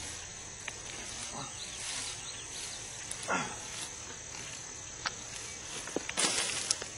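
Insects trilling steadily in a swamp, with the crackle and rustle of dry grass and cattail nesting material being pulled apart by hand, and a louder rustle about six seconds in.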